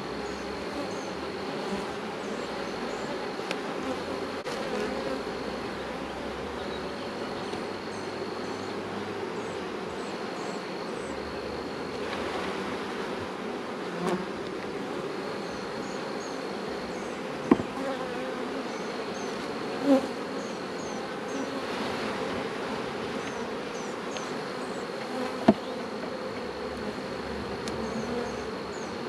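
Honeybees buzzing around an open hive in a steady hum. A metal hive tool knocks and clicks against the wooden frames a few times, the sharpest clicks about two-thirds of the way in and near the end.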